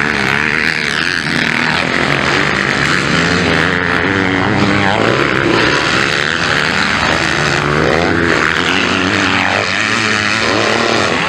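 Motocross bike engines revving up and down as MX1 riders ride past on the track. Several engines overlap, their pitch rising and falling constantly.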